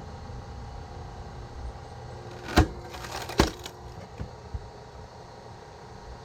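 Hydraulic log splitter running with a steady hum while its wedge forces through a log: two sharp cracks of the wood giving way, about two and a half and three and a half seconds in, then a couple of smaller knocks.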